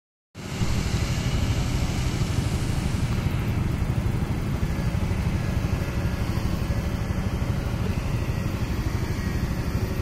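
Kobelco hydraulic excavator's diesel engine running under load with a steady low rumble while the machine works its boom and bucket.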